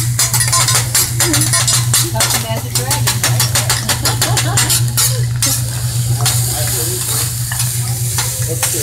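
Rice frying on a teppanyaki griddle, sizzling, while the chef's metal spatulas clatter and scrape against the steel hotplate. The taps come rapidly over the first few seconds, then thin out to occasional clicks. A steady low hum runs underneath.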